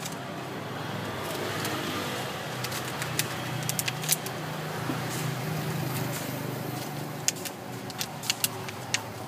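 Snap-on plastic lids being pressed onto plastic cups of iced drink, giving a series of sharp plastic clicks in two clusters, a few seconds in and again near the end. Under them is the steady hum of a running engine.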